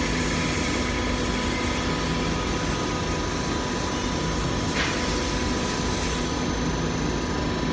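Hydraulic notching machine's power unit running with a steady hum and a low tone that comes and goes every second or so; one short click about five seconds in.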